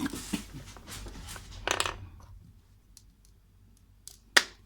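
Handling noises: rustling and scattered clicks over the first two seconds, then a single sharp, loud click near the end.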